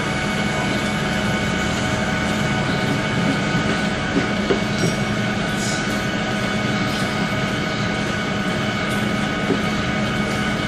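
Heavy shop machinery running steadily: a continuous rumble with several held tones that stay level.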